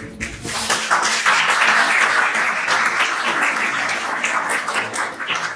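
Audience applauding: many hands clapping together, building up in the first second and tapering off near the end.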